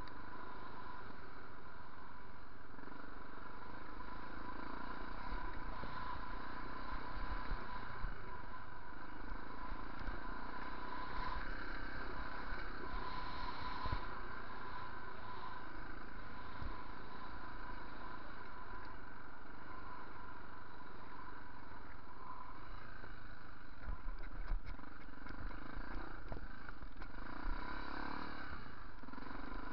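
Yamaha TT600R's single-cylinder four-stroke engine running under way on a dirt track, with wind rush on the camera microphone. Several sharp knocks from the bike jolting over bumps come near the end.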